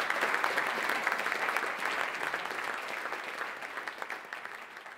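Audience applauding, the clapping growing steadily quieter and fading away.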